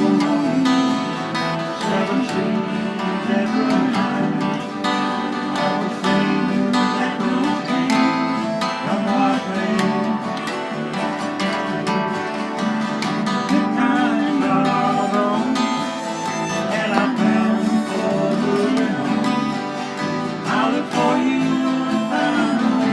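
Acoustic guitar music: an instrumental passage of a country-folk song, the guitars strumming and picking steadily.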